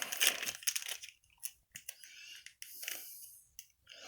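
Glossy trading cards being handled: short scattered rustles, slides and light clicks with quiet gaps between them.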